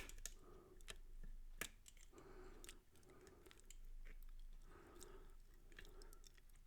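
Faint sharp clicks and soft recurring scrapes from a lock pick and tension wrench working the pin stacks of an older Guard Security padlock during single pin picking.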